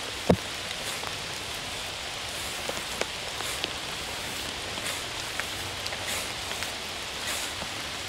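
Steady rain falling, an even hiss with scattered drips ticking, and one light knock right at the start.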